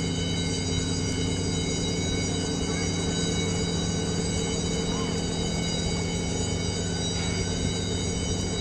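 A steady, unchanging machine hum made of many steady tones, low and high, at an even level.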